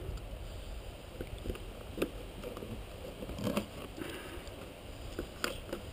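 A fillet knife cutting a sturgeon steak in two on an OSB board: a few soft taps and cuts, over a steady low rumble.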